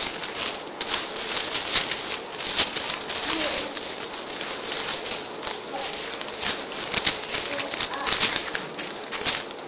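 Many people leafing through Bibles at once: a steady rustle of thin paper pages with many small crackles.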